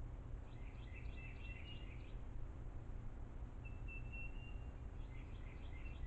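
A songbird singing over a steady low background rumble. A quick jumble of high chirps comes in the first two seconds, a held high whistled note around the middle, then more chirps near the end.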